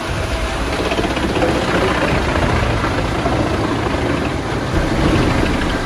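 Tractor-driven MUS-MAX 11 Z wood chipper running steadily while chipping crane-fed logs, the chips blown out through its discharge spout, together with the tractor engine under load.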